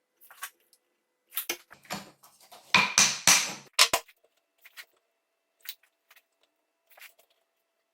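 A series of sharp knocks and clatters, like wood or tools being handled: a busy run of loud impacts about three seconds in, then a few scattered light ticks.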